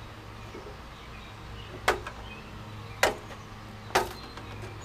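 Aluminium step ladder being picked up and moved: three metallic knocks about a second apart, each with a short ring, over a low steady hum.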